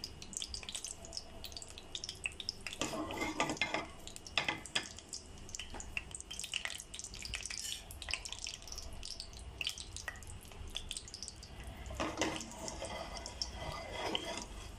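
Shahi jeera and green cardamom sizzling in hot oil and ghee in a pressure cooker, with scattered small crackling pops. The sizzling thickens into louder spells about three seconds in and again near the end.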